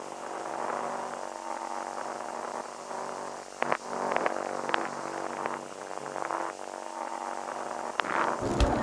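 A steady electric buzzing hum of several stacked tones, with a few short sharp crackles about halfway through and again near the end.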